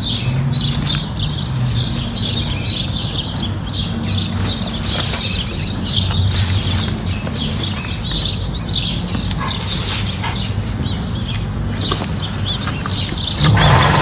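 Small birds chirping busily, many short chirps overlapping, over a steady low hum. A short louder rush of noise comes near the end.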